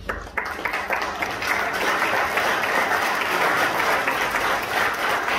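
Audience applauding, many people clapping steadily during a handshake over a framed award certificate.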